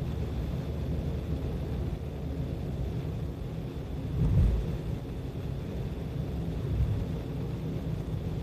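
A moving car's steady low road and engine rumble, with a louder low thump about four seconds in.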